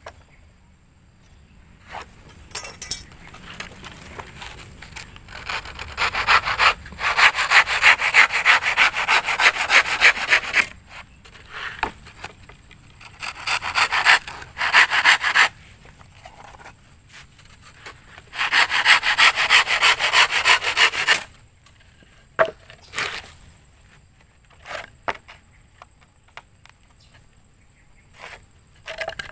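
Handsaw cutting a wooden plank by hand, in three bouts of quick back-and-forth strokes with short pauses between. After the last bout there are only a few light knocks and scrapes.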